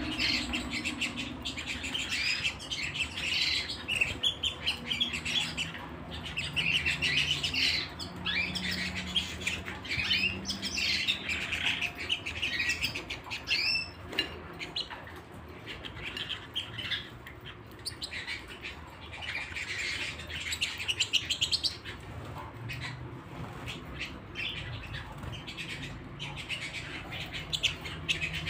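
Canary singing: long phrases of rapid trills and chirps, broken by short pauses.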